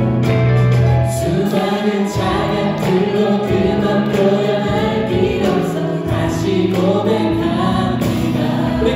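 A worship team of several singers singing a Korean contemporary worship song in harmony, backed by a live band of drums, electric guitar, keyboard and bass.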